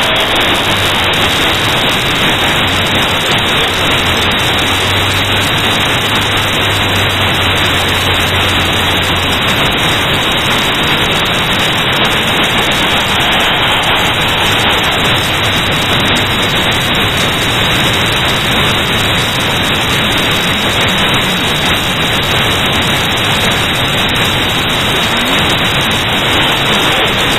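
Loud, steady static-like hiss covering the whole recording, with a faint low hum under it for roughly the first nine seconds.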